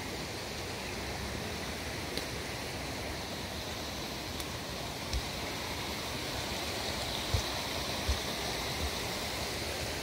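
Steady rush of river water, with a few soft low thumps of footsteps on the plank path in the second half.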